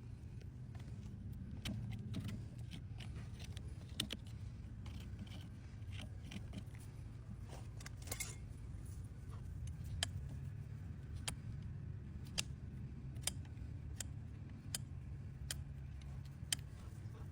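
Sharp snips and clicks of hoof-trimming tools cutting overgrown horse hoof, coming about once a second in the second half, over a low steady hum.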